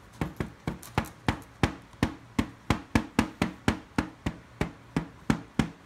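Rapid, even tapping of a small excavation hammer and chisel chipping at a chocolate fossil dig block, about four sharp knocks a second.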